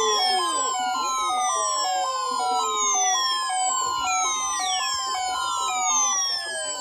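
Several NOAA weather alert radios sounding their alarms at once: a rapid two-tone warble stepping between two pitches, overlapped by repeated falling siren-like sweeps.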